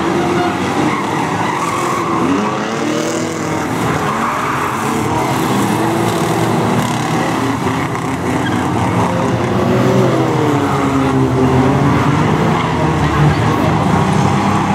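A pack of banger racing cars running hard together: several engines revving at once, their pitches rising and falling over one another.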